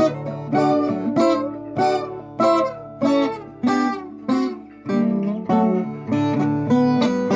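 Solo viola caipira played fingerstyle: plucked notes and chords struck about every half second and left to ring. There is a brief lull about five seconds in, then the playing picks up again.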